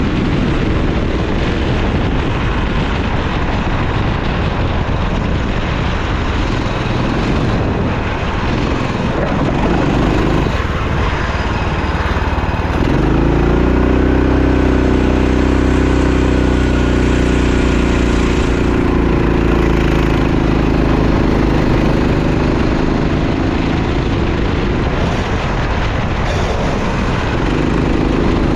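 Racing kart engine running hard under a steady hiss of noise. About halfway in, its note climbs and then holds high and steady for roughly ten seconds, before dropping away and coming back near the end.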